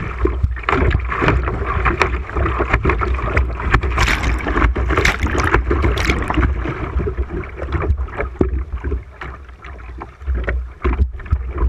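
River water rushing and splashing against a kayak's bow right at the bow-mounted camera as the kayak runs through choppy rapids, with many sharp splashes over a low rumble. The splashing eases about eight seconds in.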